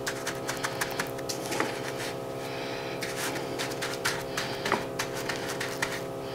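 Hands pressing and patting dry breadcrumbs onto an egg-washed meat cutlet on a plate, making light crackly rustles and many small irregular clicks, over a steady hum.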